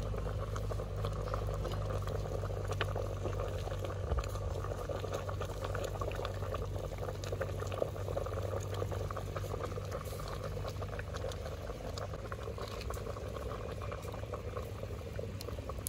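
A pot of sambar boiling over a wood fire: steady bubbling with many small pops.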